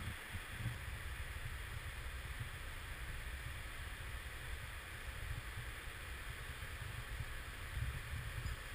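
Steady rush of a shallow river flowing, with a low rumble of wind buffeting the microphone.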